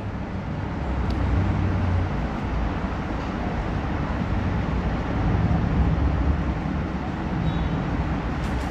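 Steady low rumble and hiss of background noise, even throughout with no distinct events.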